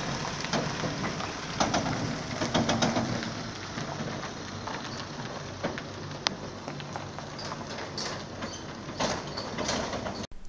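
A van towing a loaded twin-axle trailer driving slowly: steady engine and tyre noise on the road surface, with many scattered clicks and knocks. The sound cuts off sharply near the end.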